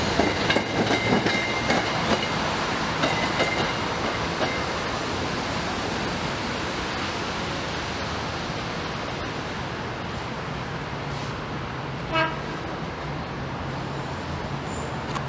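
SEPTA Regional Rail electric commuter train rolling away over the tracks, wheels clacking with a thin squeal, fading over the first few seconds into a steady low rumble. About twelve seconds in, one short horn toot sounds, most likely from the next train approaching in the distance.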